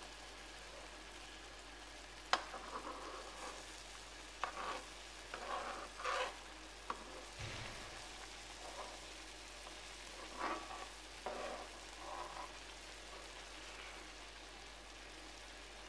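Shakshuka sauce with eggs sizzling steadily in a frying pan while a metal spoon stirs and scrapes through it, with a few sharp clicks of the spoon against the pan.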